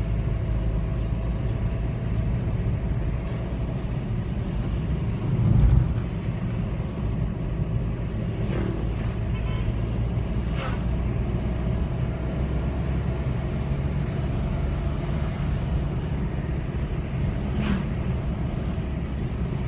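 Steady low rumble of a car's engine and tyres, heard from inside the cabin while driving. A louder thump comes about six seconds in, and a few short clicks come later.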